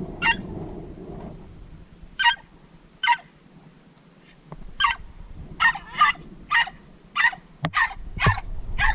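A Jack Russell terrier yapping: about eleven short, high-pitched barks, spaced out at first and coming quicker in the second half.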